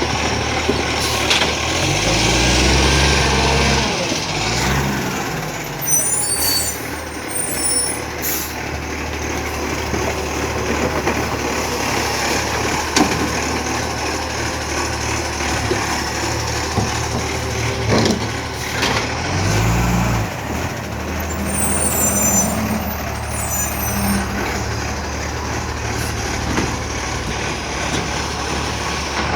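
2012 Iveco ACCO side-loader garbage truck's diesel engine running, revving up twice, with two spells of high air hissing from its air brakes.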